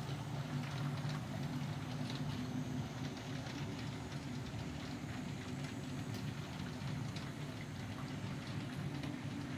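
Model passenger train rolling past on layout track: a steady low hum with faint, scattered light clicks.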